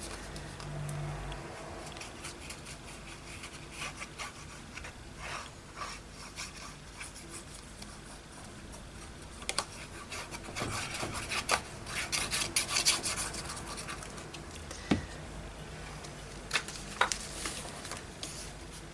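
Hands rubbing and smoothing glued paper down onto a journal page: an irregular, scratchy paper rustling with small taps, busiest in the middle stretch.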